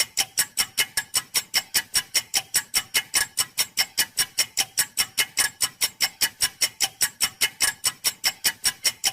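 A clock ticking fast and evenly, about five sharp ticks a second, cutting off suddenly near the end. It is a time-passing effect laid over the wait for the kettle to boil.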